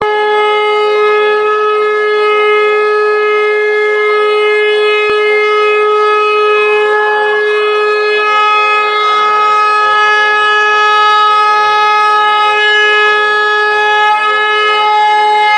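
Conch shell (shankha) blown in one long, steady, bright note, held without a break.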